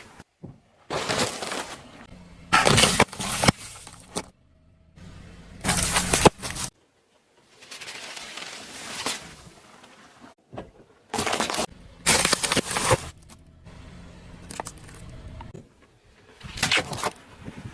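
Objects cracking and crunching as a car's tyres roll over and crush them, in a string of short clips that start and stop abruptly, with sharp cracks among steadier crunching and tyre noise.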